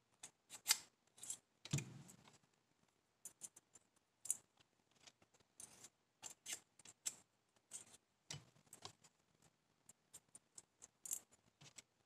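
Small metal head bolts clicking and tinkling, one after another in an irregular run of faint light clicks, as they are dropped into the bolt holes of a Dynamite .12 nitro engine's cooling head.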